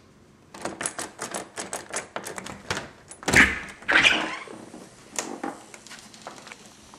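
A door knob and latch rattling with a quick run of irregular clicks, then two louder knocks as the door is pushed open, and fainter clicks after.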